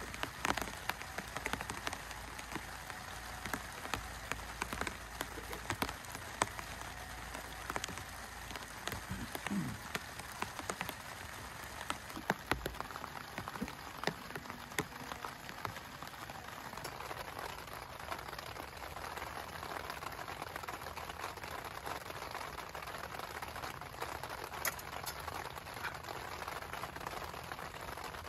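Steady rain falling, with many separate drops ticking onto a surface over an even hiss.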